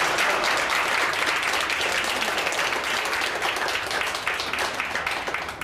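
Small crowd applauding: a dense patter of hand clapping that thins out near the end.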